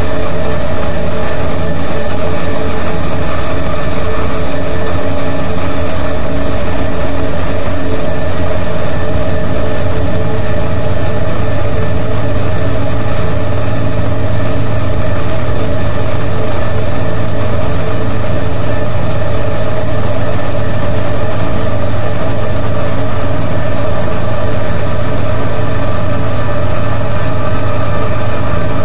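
Loud, dense electronic noise music played live on laptop: a steady wall of hiss layered with held droning tones, with no beat or rhythm. A low hum swells and strengthens about ten seconds in.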